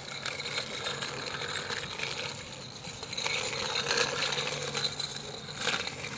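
Child's small bicycle with training wheels rolling over rough, cracked asphalt, making irregular clicks and rattles.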